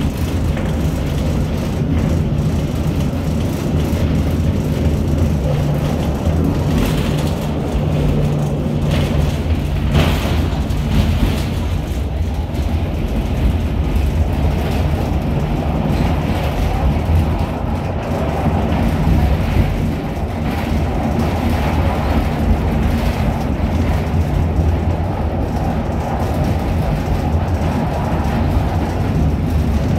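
Interior ride noise of a V3A-93 EPC articulated tram running fast: a loud, steady rumble of steel wheels on the rails. A steady low hum ends about ten seconds in, where a single sharp knock is heard.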